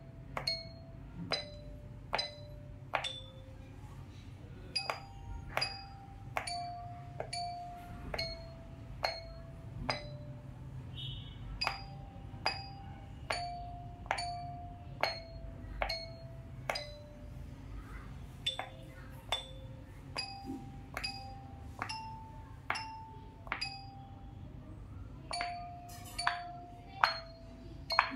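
Pop-it bubbles tapped one at a time with a plastic stick, a little over one tap a second. Each tap is a sharp click followed by a short bell-like note, and the notes step up and down in pitch like a simple tune.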